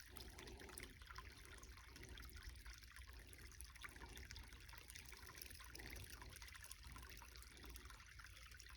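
Faint, steady trickle of creek water running over stones.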